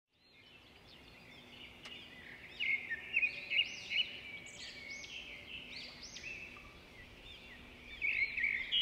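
Small birds chirping and twittering, fading in. The chirps come in louder clusters about two and a half to four seconds in and again near the end.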